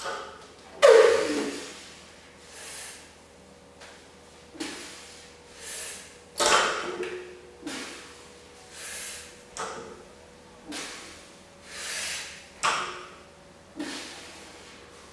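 Barbell loaded to 152 kg set down again and again on a rubber mat during a set of sumo deadlift reps: repeated clanks of bar and plates, the loudest about a second in with a short ring. Heavy breaths fall between the reps.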